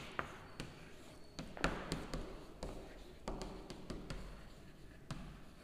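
Chalk writing on a blackboard: a string of irregular light taps and short scratches as letters are written.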